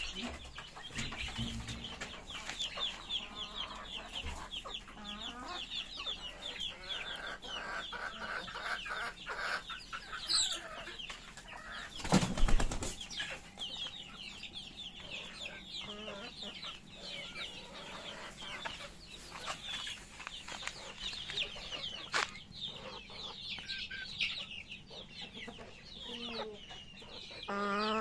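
A flock of chickens feeding, with dense, rapid high-pitched cheeping and clucking throughout. There is one brief loud burst about twelve seconds in.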